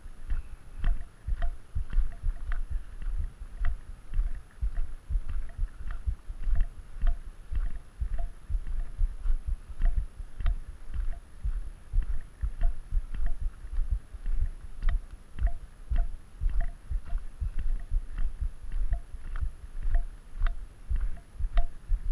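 Footsteps crunching on a gravel road at a steady walking pace, about two steps a second, each step carrying a dull low thump.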